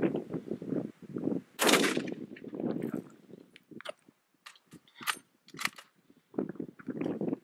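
A single rifle shot about a second and a half in, with a short echo after it, followed by scattered sharp clicks and rustling.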